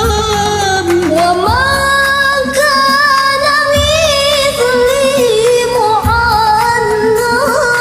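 A woman singing long held, wavering notes over a karaoke backing track with low bass notes.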